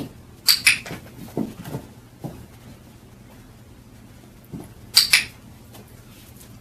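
Dog-training clicker clicked twice, each a sharp double click (press and release), about half a second in and again about five seconds in, marking the puppy's behaviour. A few soft low knocks come between the clicks.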